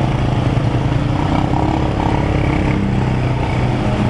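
Motorcycle engine running at low speed while riding through floodwater in heavy rain: a steady engine hum, its pitch rising a little near the end, over constant noise of rain and churned water.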